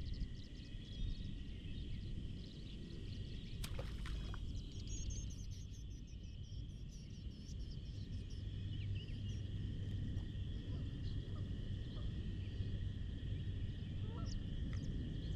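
Outdoor ambience: a steady chorus of small calling animals over a low rumble, with one sharp click about four seconds in.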